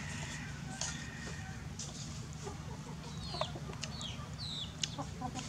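Chickens calling: a few short, high peeps that fall in pitch, over a faint steady low hum.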